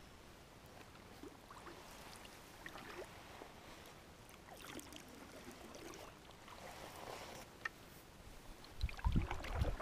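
Faint water sounds around a cedar-strip canoe on a lake: soft lapping, trickles and small splashes at the hull. A low rumble of wind on the microphone comes in near the end.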